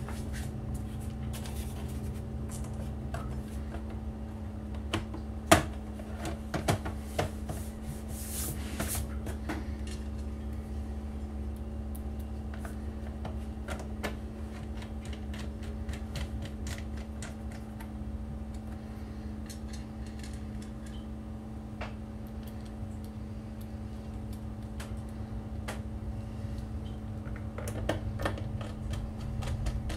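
Laptop bottom cover being set in place with a few sharp clicks and knocks, then the cover's small screws turned in with a precision screwdriver: faint, scattered ticks of the driver over a steady low hum.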